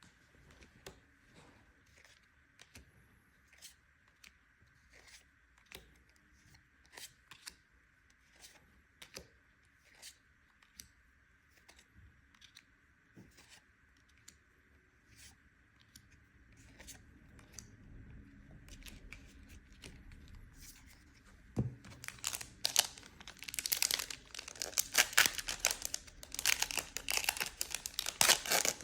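Trading cards being handled with scattered soft clicks. Then, from about two-thirds of the way through, the foil wrapper of a Magic: The Gathering collector booster pack tears and crinkles loudly as it is ripped open.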